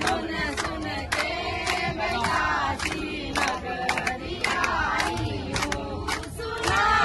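A crowd of men and women singing and chanting a devotional song together, keeping time with rhythmic hand-clapping about twice a second.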